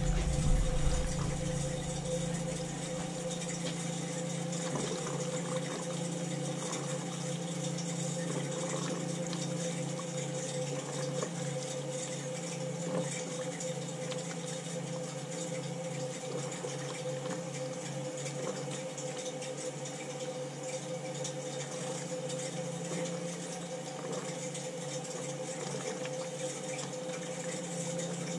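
Water pouring from a purge hose into a bucket of water, crackling and sputtering with air being purged from a hot-water heating system, over a steady hum.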